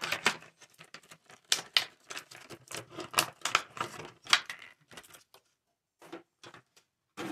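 Makeup products and their plastic cases being handled and picked up: a rapid, irregular run of clicks, taps and rustles that thins to a few single clicks after about five seconds.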